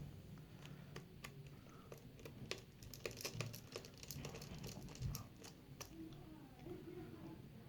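Scattered light clicks and rustling as the Dell 7537 laptop's parts are handled and fitted back together, over a faint low hum.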